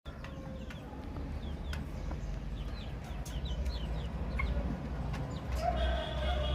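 Baby chicks peeping: many short, high chirps, each falling in pitch, with scattered faint clicks. Near the end a louder, longer and lower call with several tones joins in.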